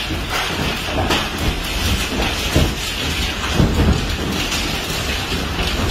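Heavy hailstorm: hailstones pelting the house's roof and glass doors in a loud, dense, unbroken clatter, with frequent louder individual hits, heard from indoors.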